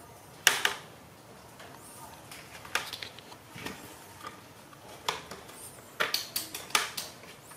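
Sharp plastic clacks and knocks of an empty plastic bucket and its handle as a young monkey pulls and pushes at it: a loud clack about half a second in, a few scattered knocks, then a quick run of four or five clacks near the end.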